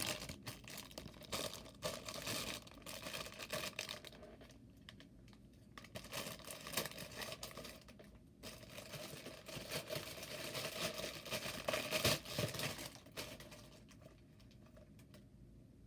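Plastic packaging crinkling and rustling in irregular spells as a fidget toy is handled and unwrapped, dying down near the end.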